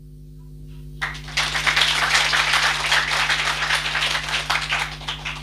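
Applause, dense overlapping hand claps from a group of listeners, starting about a second in and dying away near the end, over a steady low electrical hum.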